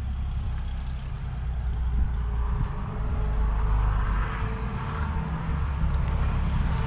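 Outdoor noise: a steady low rumble of wind on the microphone, with a broad traffic-like wash that swells about halfway through and again near the end.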